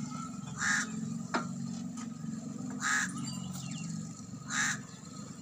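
A bird cawing three times, short loud calls a couple of seconds apart, over a steady low rumble. There is one sharp click between the first two calls.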